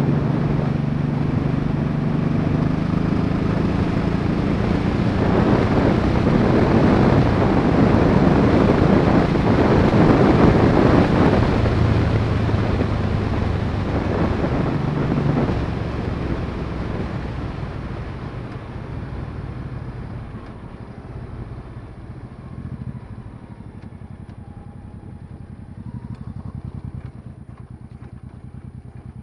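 Honda Shadow VT700C's V-twin engine running at road speed, with a heavy rush of wind that peaks about ten seconds in. In the second half the wind and engine fall away as the bike slows onto gravel, leaving the engine running low and steady.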